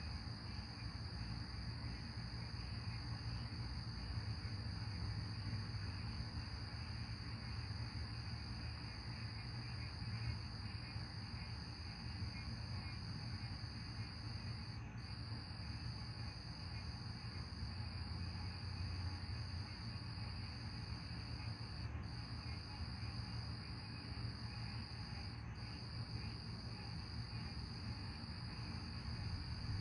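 Steady high-pitched chorus of night insects, breaking off briefly a few times, over a low steady rumble.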